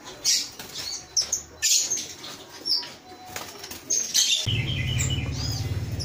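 Caged lovebirds chirping and squawking in sharp high calls, with wings fluttering. A steady low hum sets in under them about four and a half seconds in.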